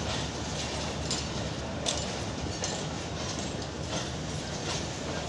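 Passenger train coaches rolling into the platform as the train arrives: a steady low rumble of the wheels with a few irregular sharp clicks.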